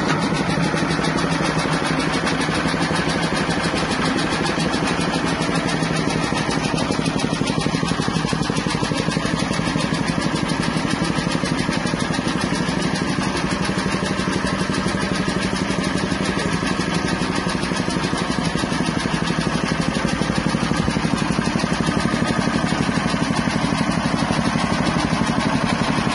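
Soybean cracking and dehulling machine running steadily, a dense, even mechanical drone.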